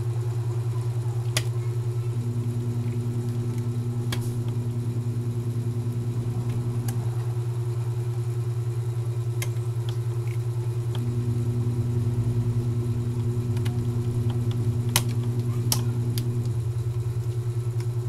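A steady, loud low drone with a fast even pulse runs throughout, and a fainter higher tone comes in twice for about five seconds each. A few sharp light clicks of small tools and laptop parts being handled on the bench sound over it, the loudest two near the end.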